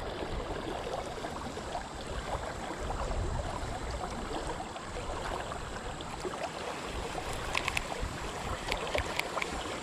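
Shallow creek water running steadily, with a few light clicks near the end.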